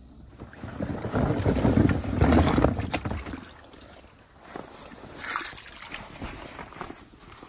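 Marsh water sloshing and splashing as hunters wade while setting out duck decoys. It is loudest for the first few seconds, then gives way to lighter, scattered splashes and knocks.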